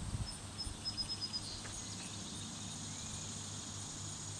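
Outdoor summer ambience: a bird gives a quick run of short high chirps in the first second or so, then a steady high-pitched insect buzz, over a low uneven rumble.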